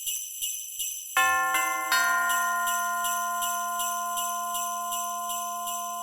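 Christmas background music: sleigh bells shaken in a steady rhythm of about four shakes a second, joined about a second in by ringing notes that build into a held chord.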